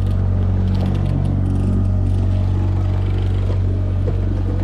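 Boat engine running steadily while trolling, an even low drone that holds the same pitch throughout.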